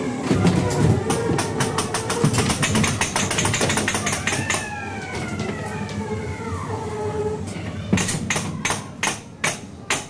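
Fairground ghost train car clattering along its track: a fast run of clicks, then a tone that slides down in pitch for about two seconds in the middle, then slower, evenly spaced clacks, about three a second, near the end.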